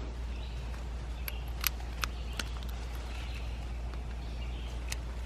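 Several light, sharp clicks of metal on metal as a new spark plug and a spark plug socket are handled, over a steady low hum.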